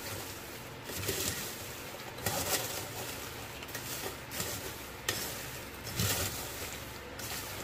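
Fried peanuts being stirred with a metal spoon in a plastic colander: an uneven rattling shuffle of nuts against the spoon and colander, in irregular strokes.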